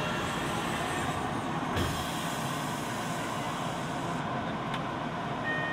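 Tokyo Metro Ginza Line 1000-series subway train running through a tunnel, heard from inside the passenger car. It makes a steady running noise of wheels on rails, with a short knock about two seconds in.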